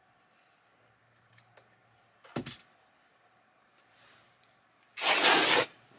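Duvet-cover fabric being ripped by hand along the grain: one loud tear lasting under a second near the end. Before it come a few light clicks and a brief short sound about two seconds in.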